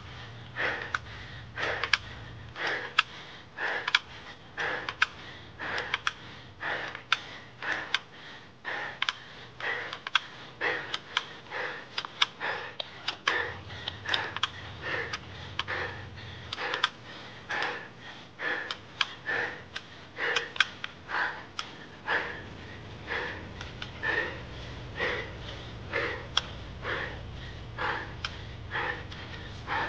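A cyclist's hard, rapid breathing, about two puffs a second, labouring up a very steep climb.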